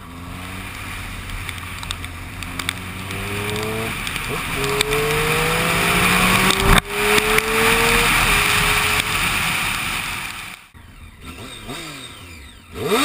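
Triumph Street Triple R's inline three-cylinder engine accelerating hard through the gears, recorded onboard. Its pitch climbs in each gear, with two upshifts, under heavy wind noise. The engine fades out a few seconds before the end, and sweeping whoosh-like tones come in.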